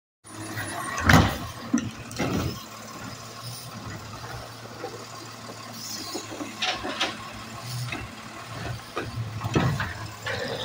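Automated side-loader recycling truck idling with a steady low hum while its hydraulic arm grabs a recycling cart, lifts and empties it into the hopper, and sets it back down. A series of knocks and bangs from the cart and arm, the loudest about a second in.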